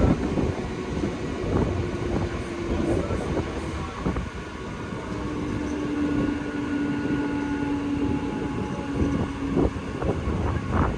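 Passenger train running on the rails: a continuous rumble with irregular clattering of wheels and coaches, and a faint steady hum through the middle few seconds.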